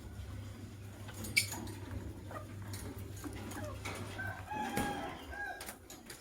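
Lovebirds giving a few short, soft chirping calls about four to five seconds in, with scattered small clicks and one sharp click about a second and a half in, over a low steady hum.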